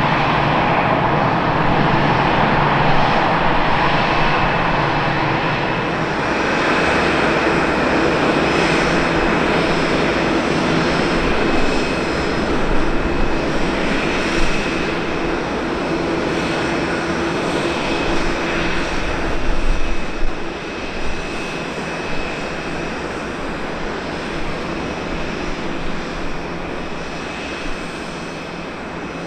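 Jet airliner engines running at idle: a steady jet whine over a low rumble, with a high held tone, easing off gradually toward the end.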